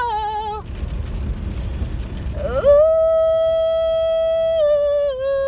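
A woman singing unaccompanied, holding long wordless vowel notes. One note ends about half a second in; after a short pause filled with a low rumble, she slides up into a long, steady note that steps down slightly near the end.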